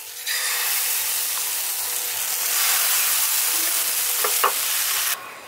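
Semolina pancake batter sizzling loudly as it is ladled onto a hot oiled frying pan. The sizzle starts a moment in and cuts off suddenly near the end. Two short knocks come about four seconds in.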